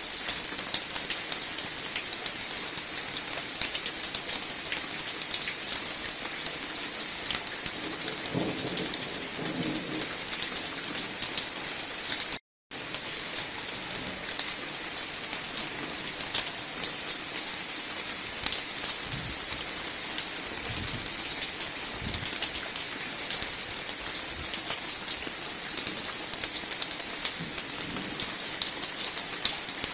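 Steady rain falling on the leaves of a mango tree, a dense patter of drops. A few low rumbles come through along the way, and the sound cuts out for a moment near the middle.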